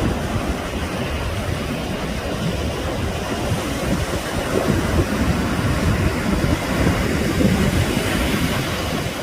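Steady rushing noise with a low rumble, as of a small fishing boat underway, with engine, water and wind mixed together.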